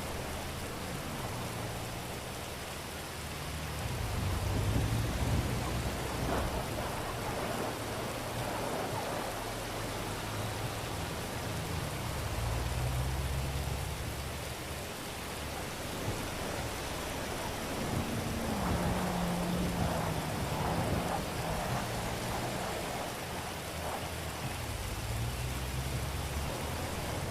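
Steady rain, with a low rumble underneath that swells and fades several times.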